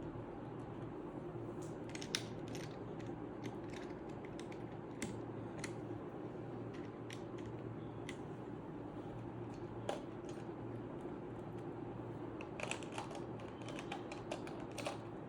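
Irregular light plastic clicks of keycaps being fitted onto the switches of a Redragon K530 Pro mechanical keyboard, with a quicker run of clicks near the end. A steady low hum runs underneath.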